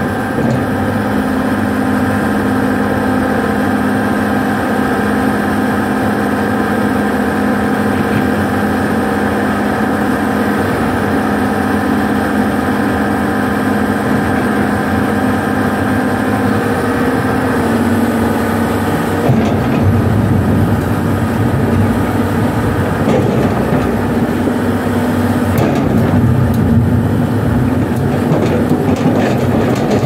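Doosan 500LC-V excavator's diesel engine running steadily at close range. About two-thirds of the way through, the steady note gives way to a rougher, heavier sound, with a few knocks.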